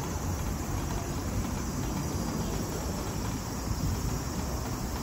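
Electric wheelchair rolling along, a steady low rumble with a constant hiss over it.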